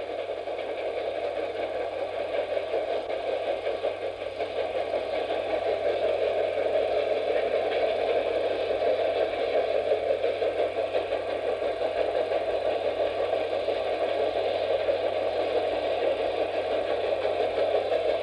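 8mm film projector running: a steady, fast mechanical clatter over a low steady hum.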